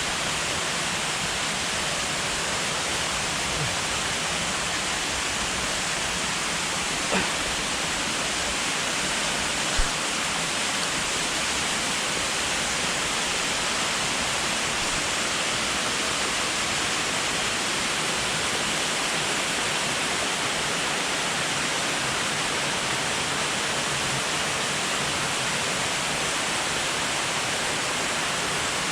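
Steady rush of a waterfall, with two brief knocks at about seven and ten seconds in.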